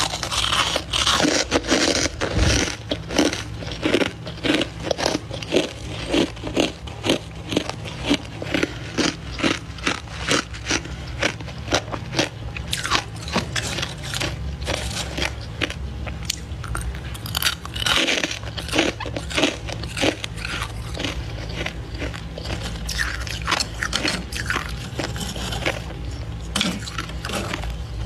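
Thick freezer frost buildup crunching as it is crushed by hand: a long run of crisp crunches, about two a second and louder in the first half, then softer and more scattered.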